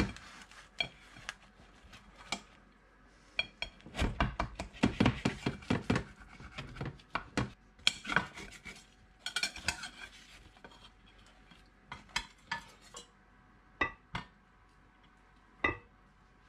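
Knife and fork cutting into and scraping against a baking dish while portions of toad in the hole are served, with irregular clinks of metal on the dish, busiest in two stretches. Near the end come a few single sharp clinks of a spoon on a metal pan as vegetables are served.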